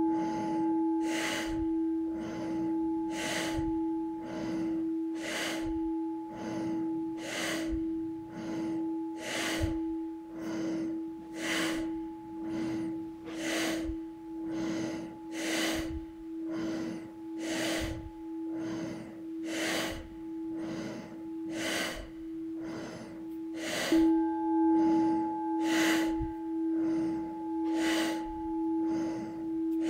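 Quick, forceful breathing in and out through the nose in a fast, even rhythm: the intensive phase of a meditation breathing exercise. Under it a singing bowl rings steadily and is struck again late on.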